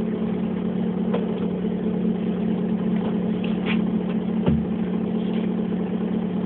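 Bus engine running with a steady low hum, heard from inside the passenger cabin, with a single knock about four and a half seconds in.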